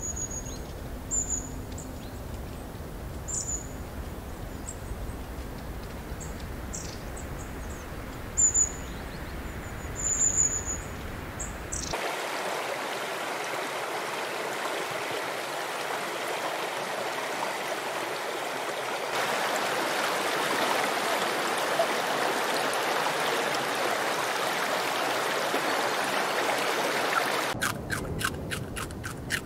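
Short, high bird chirps over a low outdoor rumble. About twelve seconds in this gives way to the steady rush of a flowing stream, and near the end rapid, even clicking begins.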